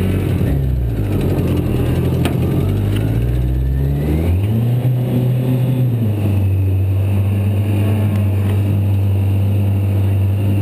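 Kawasaki ZX-10 inline-four motorcycle engine driving a jet-boat pump, running under throttle. Its note wavers, climbs about four to five seconds in, then holds steady.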